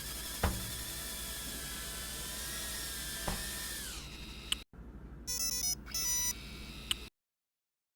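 FPV drone motors whining steadily at a high pitch, with two sharp clicks, then winding down about four seconds in. A run of short electronic beeps follows.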